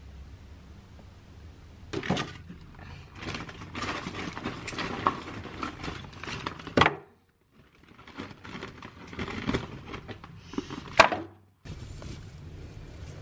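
Split firewood and newspaper being handled to lay a fire in a fireplace: irregular knocks of logs and crinkling paper. There is one sharp, loud scrape near the end.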